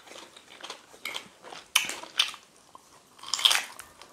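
Close-up mouth sounds of eating fufu and slippery ogbono soup by hand: a few short, wet smacks and chews, the loudest about three and a half seconds in.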